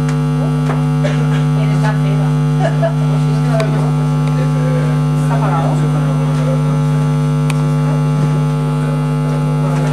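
Loud, steady electrical mains hum from the PA sound system, a low buzzing tone with many overtones: a fault in the sound system that drowns out the talk. Faint voices are just audible beneath it.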